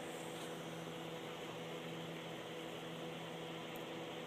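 Steady low hum with an even layer of hiss, and no distinct sounds standing out.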